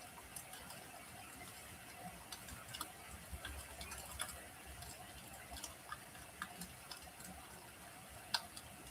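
Wood fire crackling in a fireplace: faint, irregular pops and snaps over a light hiss, with one sharper pop near the end.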